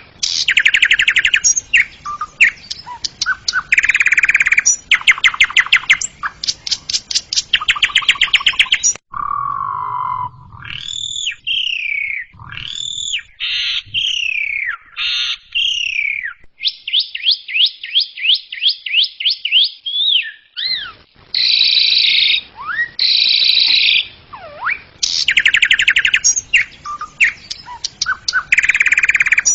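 Asian pied starling (jalak suren) singing: loud, fast chattering trills alternating with clear whistles that swoop up and down, and a run of quick repeated notes. The recording cuts abruptly about nine seconds in.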